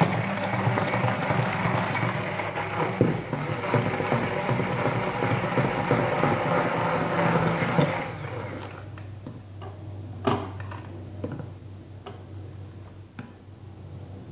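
Electric hand blender running in a bowl of cream mixture, a steady whirring whine that dips briefly about three seconds in, then winds down and stops about eight seconds in. After it stops, a few light knocks of the utensil against the glass bowl.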